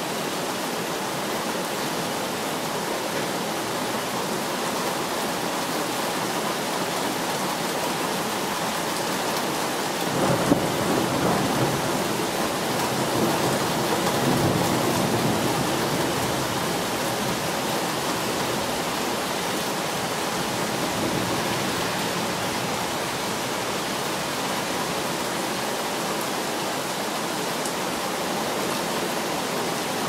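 Steady rain hissing, with a peal of thunder about ten seconds in that rolls on for around six seconds before fading back into the rain.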